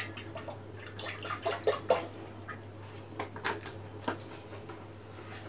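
Cooking oil poured from a bottle into an empty stainless-steel karahi: a soft liquid pour with scattered small ticks and drips, fading out after about three seconds.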